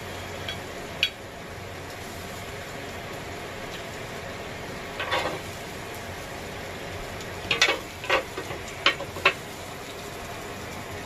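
A few sharp clinks and clicks of metal utensils against a ceramic plate, clustered near the end, over a steady background hiss.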